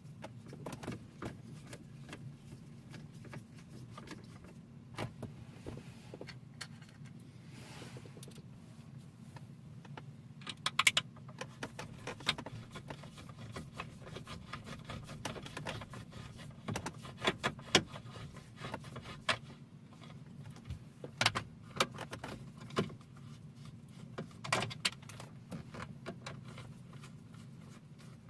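Irregular small clicks and taps of screws and a screwdriver against metal and plastic as a unit is screwed into a car's centre console, over a steady low hum.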